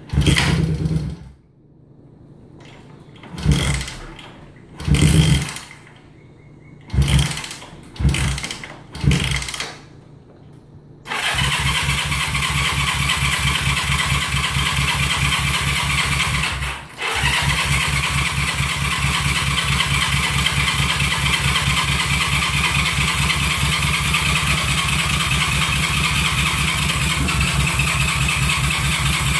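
1971 Honda CB350's parallel-twin engine being started: six short bursts of cranking and sputtering, each about half a second to a second, then about eleven seconds in it catches and keeps running steadily. It stumbles briefly once around seventeen seconds in, then runs on.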